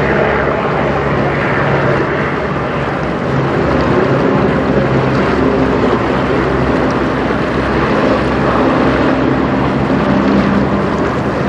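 Steady low engine drone holding a few pitches, over an even rushing noise.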